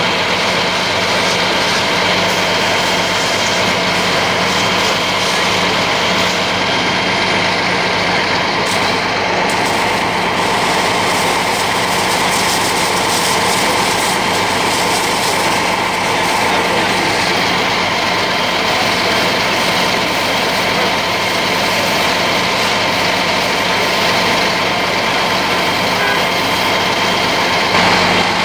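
Large vehicle engine idling steadily with a constant hum, and a brief louder noise near the end.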